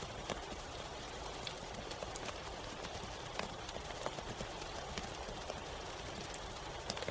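Steady rain: an even hiss with louder drops tapping at irregular moments, a few times a second.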